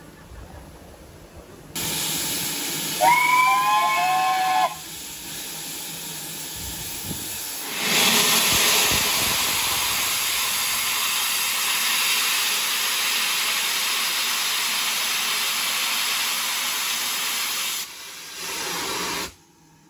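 BR Standard Class 2MT steam locomotive standing still and letting off steam with a loud, steady hiss that starts about two seconds in. It gives one short whistle blast about three seconds in. The steam hiss grows louder about eight seconds in and stops just before the end.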